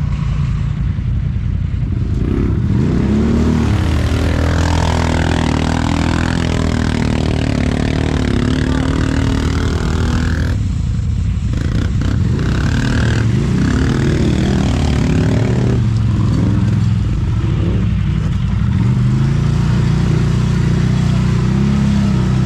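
An off-road vehicle's engine running and revving, its pitch rising and falling repeatedly over a steady low rumble.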